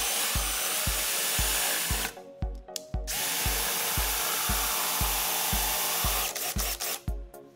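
Drill motors of a drill-powered homemade drum sander running while a board is fed under the sanding drum, in two spells of about two and three seconds with a one-second stop between, a rising whine as the motor spins up at the start. Background music with a steady beat about twice a second runs underneath.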